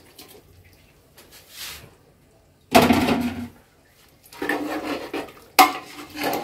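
Metal cooking pot and utensil clattering as goat meat is added to a pot of goat trotters: a heavy thud about three seconds in, then scraping and a sharp clink near the end.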